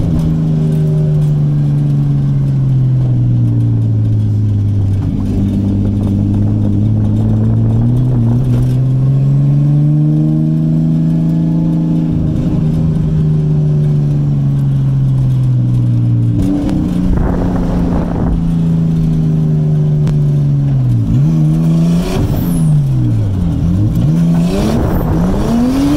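Nissan 240SX S14's engine heard from inside the cabin, its revs rising and falling slowly as the car is driven around the track. Near the end the revs climb and drop sharply several times in quick succession.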